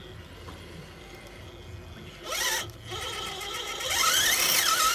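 RC rock crawler's electric motor whining under throttle as the truck climbs a rock slope. Its pitch rises sharply about two seconds in, then swells and falls with the throttle over the last couple of seconds.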